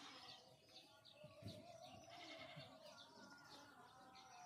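Faint outdoor ambience with distant animal calls.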